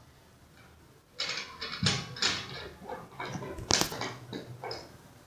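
Blue plastic screw cap being twisted off a glass jar of concentrated sulfuric acid: an irregular run of scrapes and sharp clicks for a few seconds, starting about a second in.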